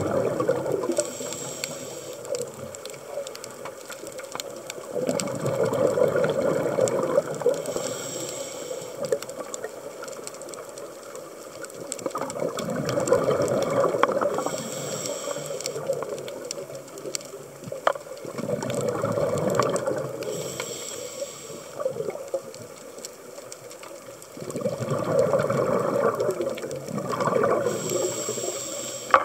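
Scuba diver breathing through a regulator underwater: a short hiss on each inhalation, then a long rush of exhaled bubbles, about five breaths, one every six seconds or so. Faint scattered clicks run underneath.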